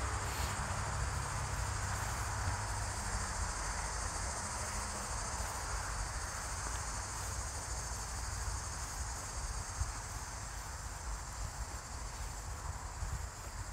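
Steady insect chorus, a continuous high-pitched trilling of summer insects such as crickets, over a low rumble that is stronger in the first few seconds.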